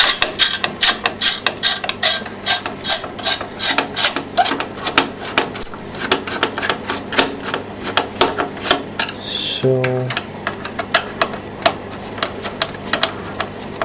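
CPU cooler mounting screws being unscrewed by hand: a quick, uneven run of small clicks and scraping, about four or five a second.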